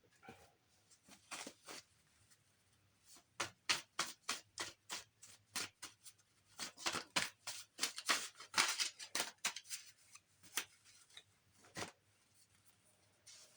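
A deck of cards being shuffled by hand: a run of quick, irregular snapping rustles, thickest in the middle stretch, with a last snap near the end.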